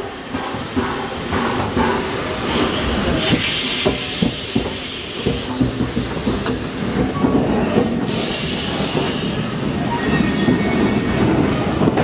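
60163 Tornado, a Peppercorn A1 Pacific steam locomotive, moving slowly in reverse: steam hissing in two long spells over a steady rumble, with frequent clanks and knocks from the running gear.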